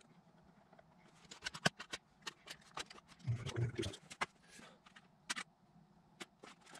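Irregular light clicks and knocks of things being handled in a workshop, with a brief low murmur about three seconds in.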